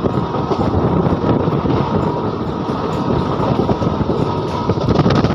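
Passenger train running at speed, heard from an open coach door: a steady, loud rumble and rattle of the wheels on the rails, with scattered clicks.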